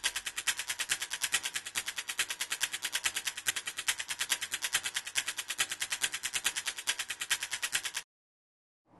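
A rapid, even clatter of sharp clicks, about ten a second, like automatic gunfire, that cuts off suddenly about eight seconds in.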